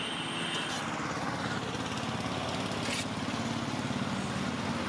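A small engine running steadily close by, its firing heard as a fast even rhythm.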